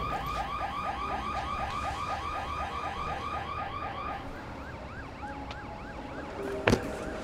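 Electronic alarm siren yelping in rapid rising sweeps, about five a second, switching to a slower, higher sweep about four seconds in. A single sharp bang cuts through near the end.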